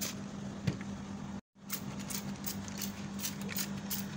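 Plastic hand trigger spray bottle squirting a pesticide solution onto a chili plant's leaves, pumped rapidly in short hissing sprays about three or four a second, over a steady low hum. The sound cuts out completely for a moment about a second and a half in.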